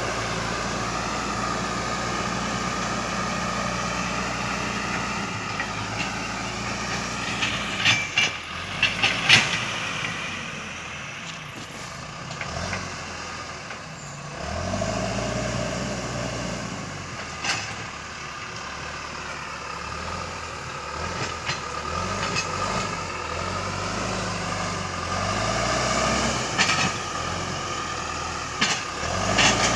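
John Deere 310E backhoe loader working: its diesel engine runs with the pitch rising and falling again and again as it takes hydraulic load, with a whine that bends along with it. Several sharp knocks cut through, the loudest cluster about eight to nine seconds in.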